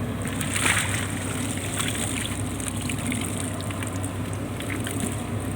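Water splashing and trickling, strongest from about half a second to two seconds in, over the steady hum of a purse seine fishing boat's engine.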